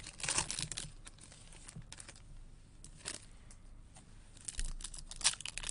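Foil trading-card pack wrapper crinkling and tearing as it is handled and ripped open, in crisp bursts about half a second in and again near the end, with a few stray crackles in the quieter stretch between.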